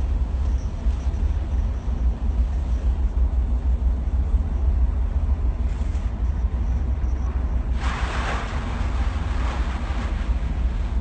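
A ferry's engines give a steady, deep rumble during the crossing. About eight seconds in comes a brief louder rush of noise, and a fainter one just after.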